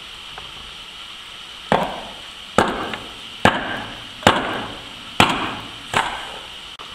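Hatchet chopping firewood on a stump: six sharp chops a little under a second apart, starting a couple of seconds in.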